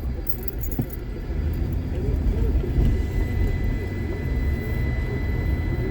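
Steady low rumble of a car's engine and tyres on the road while driving.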